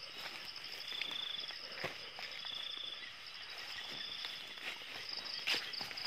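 Night insect chorus: a steady high buzz, with a shorter pulsed trill coming back about every second and a half. Scattered rustles and light knocks of movement through wet grass, with a louder rustle near the end.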